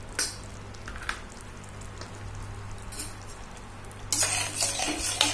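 A spatula in a metal kadai of simmering curry: a few light clicks in the first seconds, then busy scraping and stirring against the pan from about four seconds in, over a low steady hum.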